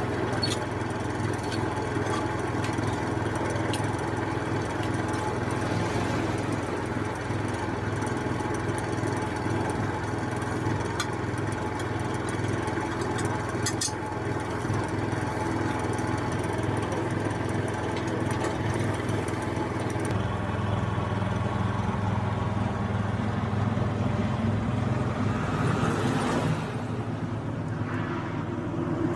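An engine running steadily nearby, its note shifting slightly about two-thirds of the way through, with a few faint clicks as the metal guide roller is handled.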